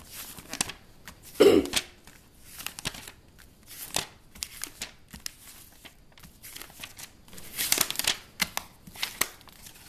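Paper pages of an instruction booklet being handled and turned, with scattered rustles and crinkles, a louder bump about a second and a half in, and a busier spell of rustling near the end.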